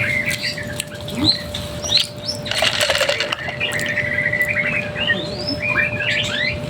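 Small birds chirping over and over in quick, short calls, with a brief rush of fluttering wings about two and a half seconds in. A faint steady hum runs underneath.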